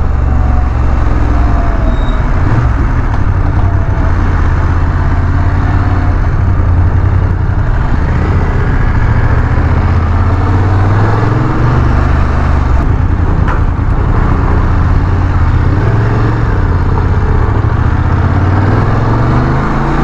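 Motorcycle riding along a road, heard from the rider: a steady engine drone whose pitch rises and falls with speed, under constant wind and road noise.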